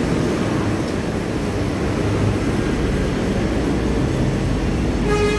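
Steady rumble of road traffic and bus engines at a busway station. About five seconds in, a short pitched beep sounds.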